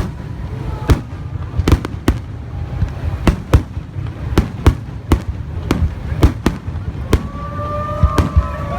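Aerial fireworks display: sharp bangs in quick succession, about one or two a second, over a continuous low rumble of further bursts.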